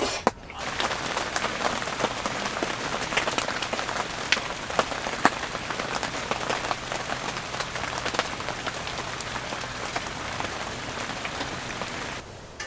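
Steady rain falling, with many separate heavy drops striking close by; it drops away sharply near the end.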